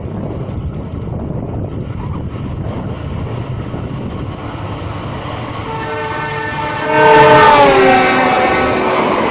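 Sancaka passenger train's diesel locomotive rumbling closer, then sounding a long multi-tone horn blast about six seconds in that drops in pitch as the locomotive passes close by. The carriages then run past.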